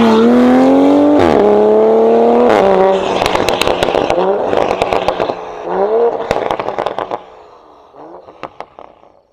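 Toyota A90 Supra's turbocharged 3.0-litre straight-six through a catless Fi valvetronic exhaust, accelerating hard with two quick upshifts in the first three seconds. It then drops off throttle and pops and crackles on the overrun, with a couple of short blips of revs, fading away as the car pulls off.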